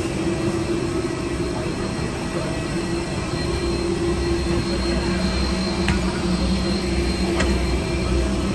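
Airport apron shuttle bus running, heard from inside its passenger cabin: a steady drone with a low rumble and a couple of faint clicks in the second half.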